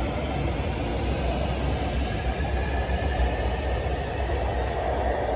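Beijing Subway Line 8 metro train running alongside the underground platform behind the platform screen doors: a steady rumble with no clear breaks.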